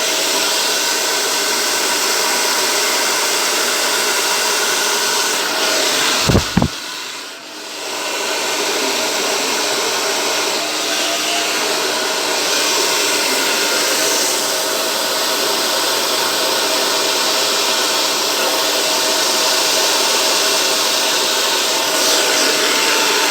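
Handheld hair dryer blowing steadily, used to push fluid acrylic paint across a canvas in a Dutch pour. About six seconds in there is a short low thump and the sound briefly drops, then it runs on steadily again.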